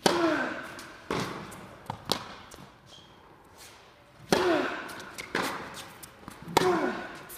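Tennis racket strikes on the ball echoing through a large indoor tennis hall: a loud serve hit at the start, another about four seconds in, and a third hit near the end. Each of the three is followed by a short falling tone. Fainter knocks of the ball bouncing and being returned come between them.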